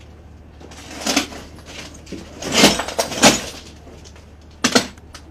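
Press photographers' camera shutters firing in short rapid bursts, four in all, the loudest two in the middle.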